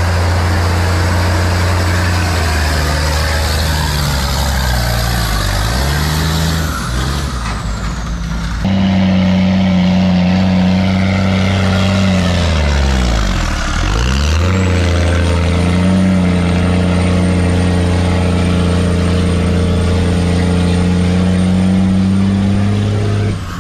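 Heavy military truck's engine running loud at a low pitch. The note dips and climbs back twice, and the sound changes abruptly about nine seconds in. A thin high whine comes in past the middle.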